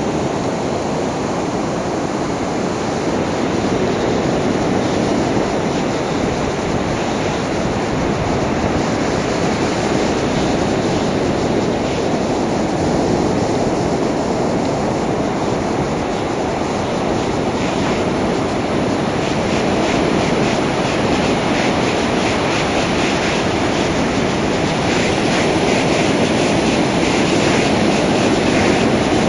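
Ocean surf breaking and washing up a sandy beach: a steady rushing noise that grows a little louder near the end.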